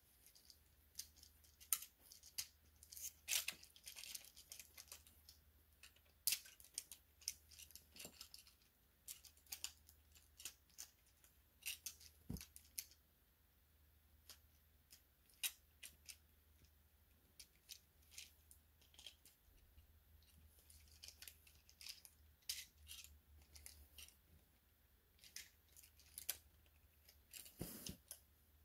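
Faint, irregular clicks and small snaps of plastic toy parts being handled, with one to a few clicks a second, over a low steady hum.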